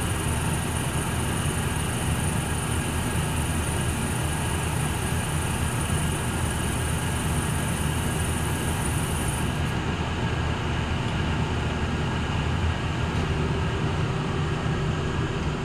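Hardinge HC chucker lathe running with a steady motor and spindle hum. A high hiss above the hum stops suddenly about halfway through.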